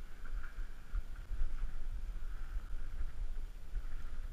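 Uneven low rumble of handling and wind noise on a body-worn action camera's microphone, with no clear knocks or clinks.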